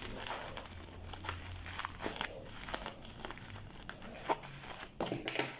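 Small scissors snipping through plastic bubble wrap, with the wrap crinkling between uneven, sharp snips.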